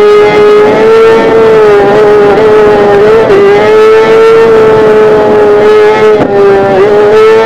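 Kawasaki ZX-10R inline-four engine held at high revs, a loud, steady, high-pitched scream. Its pitch dips briefly and recovers twice, at about 3 s and about 6 s.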